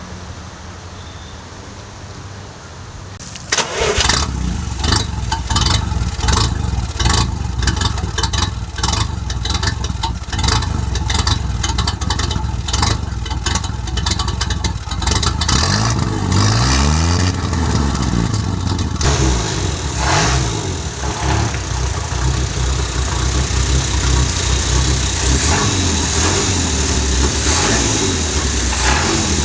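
A classic car's engine starts about three and a half seconds in and runs unevenly with many sharp pops at first. It revs up and down briefly, then settles into steady running.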